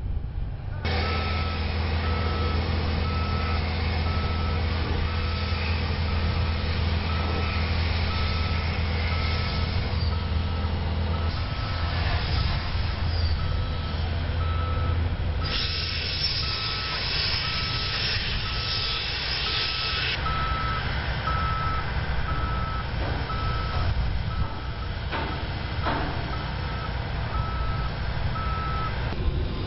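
A vehicle's backup alarm beeping steadily at one pitch, about once a second, over the low hum of a running engine that drops away about a third of the way in. A few seconds of loud hiss come in just past the middle.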